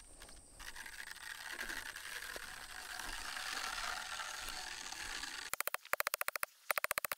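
Rapid metallic clicking in four short bursts near the end, about twenty clicks a second, over a steady hiss.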